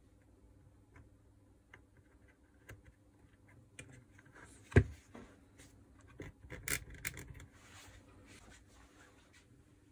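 Small clicks and rubbing of wires and plastic parts being handled in an open jigsaw housing, with one sharp knock about five seconds in and a short clatter of small knocks a second or so later.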